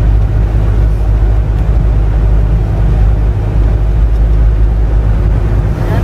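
Steady low rumble of engine and road noise heard from inside a moving vehicle cruising along a paved road.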